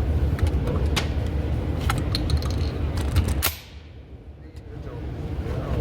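A single sharp shotgun shot about three and a half seconds in, after which the recording level dips and slowly recovers, over a steady low rumble of wind on the microphone with a few lighter clicks.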